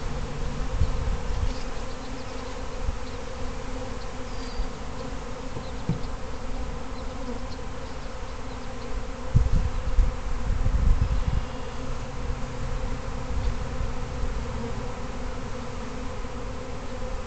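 A swarm of honey bees buzzing in flight, a steady hum throughout. A few low thumps come around the middle.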